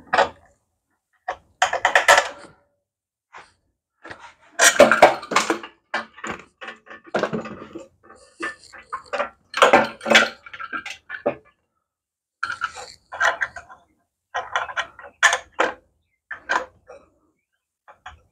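Hand tools and small metal parts clinking and knocking in irregular bursts of sharp clicks, with short pauses between.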